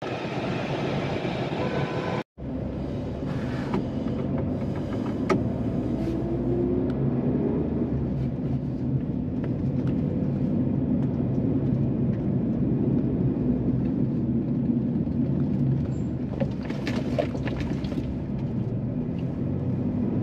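Steady road and engine noise inside a moving car's cabin, with a brief silent gap about two seconds in.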